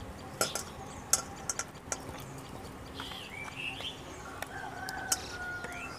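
Small birds chirping in the background, with several light clicks and taps as a steel mixer-grinder jar is tipped and emptied over a steel bowl.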